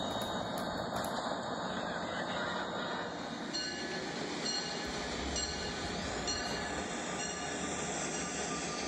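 A train rolling past, with a steady running noise of wheels on track that holds at an even level throughout.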